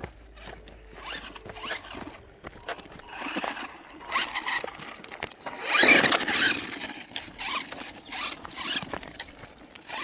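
Radio-controlled Maverick Phantom XT truck driving off-road: its motor whines in short bursts as the throttle is worked, with tyres scrabbling over dirt and gravel. The loudest burst comes about six seconds in.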